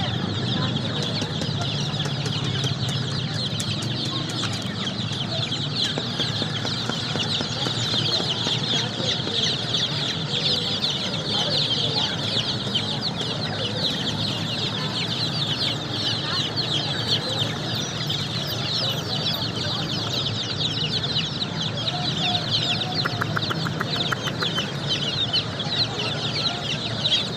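A crowd of baby chicks peeping continuously: many short, high, downward-sliding peeps overlapping into a dense chorus, over a steady low hum.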